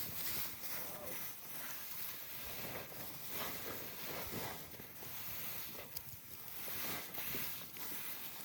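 Irregular rustling of dry straw with soft, uneven footstep-like thuds.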